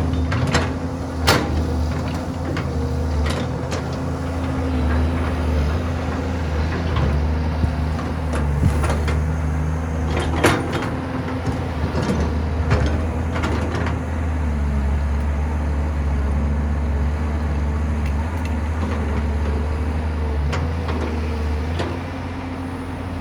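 Diesel engine of heavy construction machinery running steadily, with sharp knocks and clanks every few seconds; the loudest knock comes about ten seconds in. Near the end the engine note drops a little.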